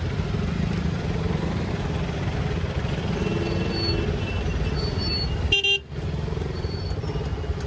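Motorcycle riding through city traffic: a steady low rumble of the bike's engine and road noise, with short car horns honking a few times near the middle. The sound briefly cuts out about five and a half seconds in.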